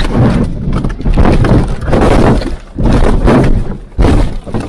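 BMW M4 rolling over after a crash, heard from inside the cabin: a run of loud crashes and crunching of the car body as it strikes the ground, about once a second, going quiet near the end as the car comes to rest.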